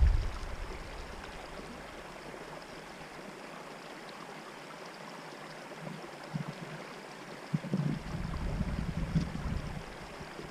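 Steady faint hiss of wind and small waves lapping at the bank. From about six seconds in, gusts of wind buffet the microphone in low rumbles.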